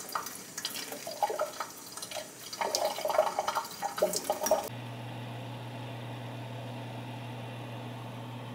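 Water splashing and dripping in a sink as a freshly potted plant is watered, in uneven spurts. About four and a half seconds in it cuts off abruptly to a steady low hum.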